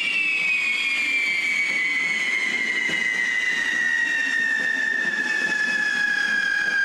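Fireworks fixed to a fire beast's head burning and spraying sparks: a hissing burn with a loud whistle that slides slowly down in pitch.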